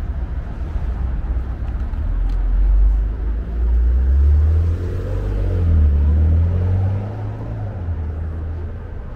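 Street traffic: a motor vehicle passing close by, its low engine rumble loudest in the middle and fading near the end.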